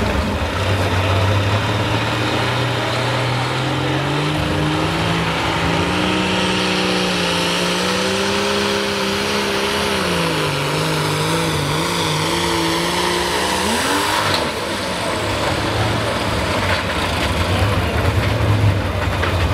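Turbocharged diesel pulling tractor running flat out against the sled. The engine note climbs over the first few seconds, holds high, sags a little, then flares sharply upward about two-thirds of the way through and breaks off, leaving a lower, steadier engine sound.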